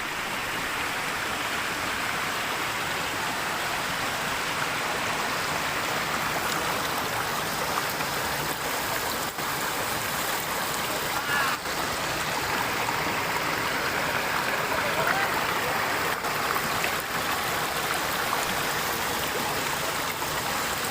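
River water flowing over its bed: a steady, even rushing with no let-up.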